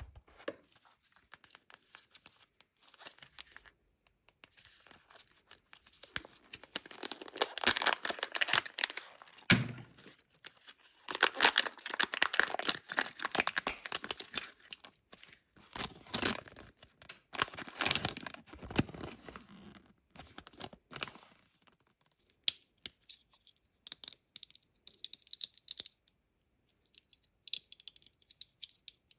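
Kinder Joy egg wrapper being torn open and crinkled by hand, in a long stretch of loud crackling through the middle. Quieter rustles and small clicks of handling come before and after.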